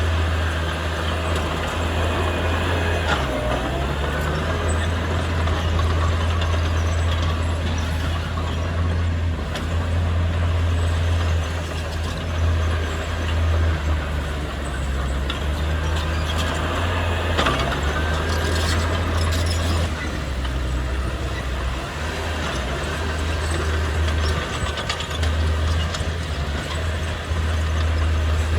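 Heavy diesel construction machinery running, with a deep steady engine rumble that rises and falls slightly, and occasional higher squeals and hisses over it.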